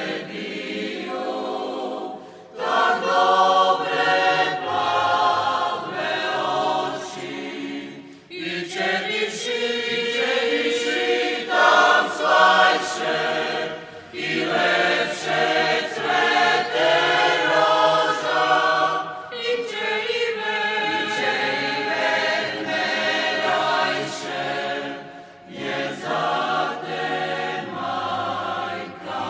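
A choir sings a slow song in Croatian, in phrases of about five to six seconds, each followed by a brief pause for breath.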